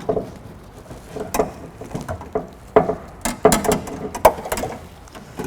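Irregular clicks and knocks of a car door latch assembly being handled and worked into position inside the door shell, hard parts tapping against sheet metal.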